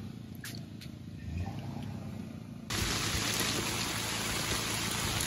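Steady rain falling, an even hiss that comes in abruptly about two and a half seconds in and holds steady. Before it, a few faint crackles from a wood campfire.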